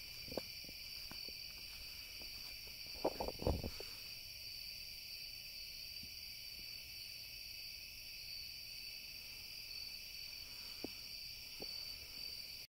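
Night insects calling in a steady, high-pitched chorus, with a few faint knocks about three seconds in.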